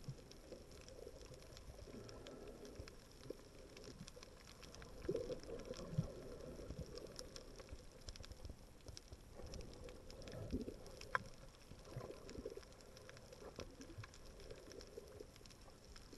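Faint, muffled underwater noise heard through a submerged camera: a low rumble with a few sharp clicks and pops.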